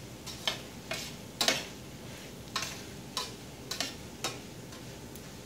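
A utensil stirring fried rice in a stainless-steel pan, clicking and scraping against the pan about eight times, over a faint sizzle from the rice frying on low heat.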